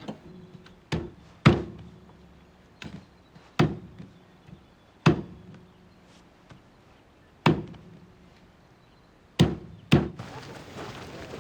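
Chopping: about eight sharp, irregularly spaced blows, each ringing briefly, with the last two close together near the end.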